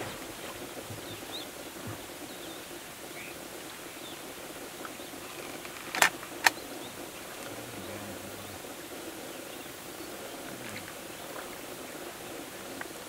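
Steady outdoor background hiss with scattered faint high chirps. Two sharp clicks about half a second apart near the middle stand out as the loudest sounds.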